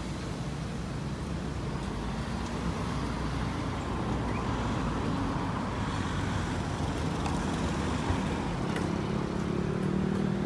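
Steady road traffic noise from cars on the street alongside, with a vehicle's engine hum growing louder near the end.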